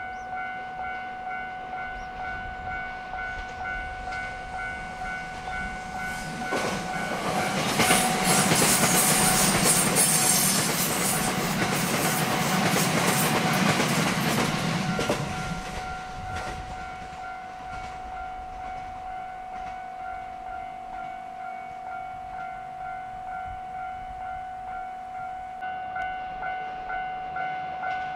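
Level-crossing warning bell ringing in a steady repeating pattern while a 227 series electric train climbs past. The train's passing is loud for about nine seconds in the middle, and the bell keeps ringing after it has gone.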